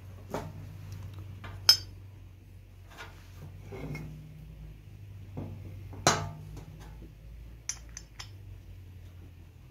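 Metal parts and tools clinking and knocking while a Peugeot 206 oil pump is reassembled. There are about eight separate sharp clinks with short ringing, two of them much louder, over a steady low hum.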